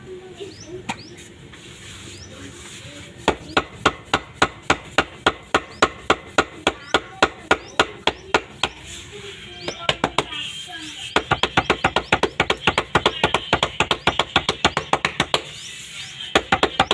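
Palms slapping and patting a thin jowar (sorghum) roti flat on a floured slab: a run of sharp, rhythmic pats at about three a second, quickening to about six a second in the second half, with short pauses between runs.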